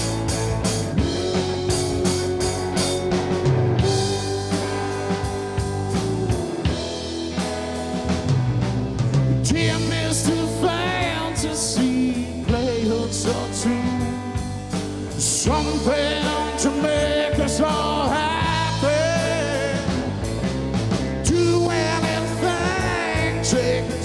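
Rock band playing a slow song with drum kit and guitars, in an instrumental stretch between sung verses. A wavering lead melody runs over the band from about ten seconds in.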